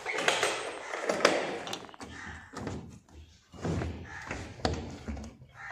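Rustling and clattering as the driver's seat of a Maruti Eeco is unlatched and tipped up and the floor carpet pulled back from the engine cover, with a sharp knock about a second in and several dull thuds later.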